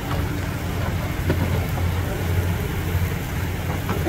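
Fish and kebabs sizzling on a charcoal grill over a steady low hum, with a few faint crackles.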